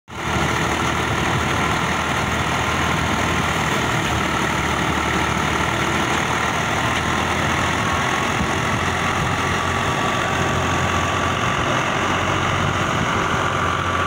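Al-Ghazi tractor's diesel engine running steadily under load, driving a wheat threshing machine. The engine and thresher together make one continuous, unchanging din with a faint steady whine in it.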